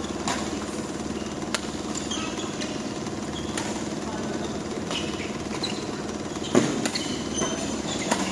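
Badminton rally: sharp racket strikes on the shuttlecock about every second, the loudest about three-quarters of the way through, with brief sneaker squeaks on the court floor over a steady mechanical hum in the hall.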